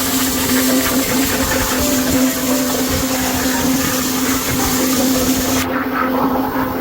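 A motor runs with a steady hum under a loud hiss. The hiss cuts off suddenly near the end while the hum carries on.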